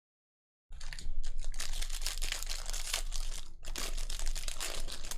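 Crinkling foil wrapper of a trading-card pack being handled and opened, a dense crackle that starts just under a second in.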